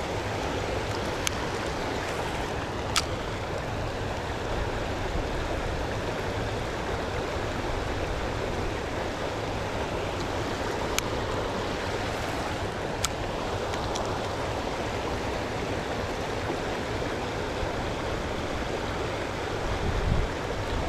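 Shallow river running over rocks: a steady rush of flowing water, with a few short, sharp clicks.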